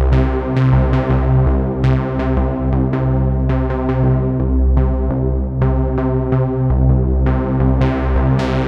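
Novation Peak synthesizer playing its "Laser Light" factory preset: a repeating run of short plucked notes, about two a second, over a steady low bass, while the filter cutoff is turned up.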